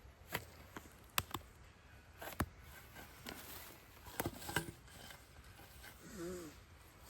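Irregular sharp knocks and clicks, a few per second at most, unevenly spaced, with a short pitched call about six seconds in.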